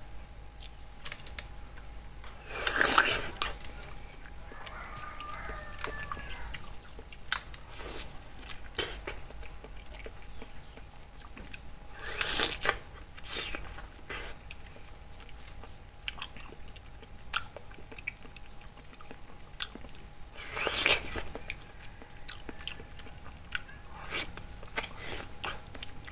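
Close-up eating of a soft, juicy ripe mango: wet bites and chewing, with three louder bites about nine seconds apart and small mouth clicks and smacks between them.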